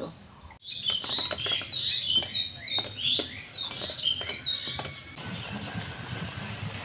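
A bird chirping over and over in short falling calls, with a few sharp clinks. About five seconds in, this gives way to the steady sizzle of dumplings frying in hot oil in an aluminium wok.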